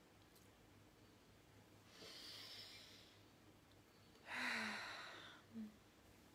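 A person breathing: a soft breath in, then about two seconds later a louder, longer breath out with a faint voiced sigh at its start and end.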